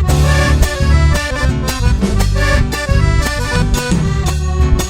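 Live Chilean folk dance music played instrumentally by a band, an accordion carrying the tune over a strong bass line and an even, steady percussion beat.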